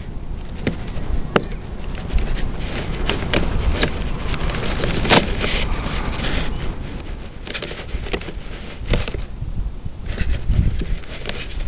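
Strong wind buffeting the microphone as a steady low rumble, with scattered sharp clicks and crackles throughout; the loudest click comes about five seconds in.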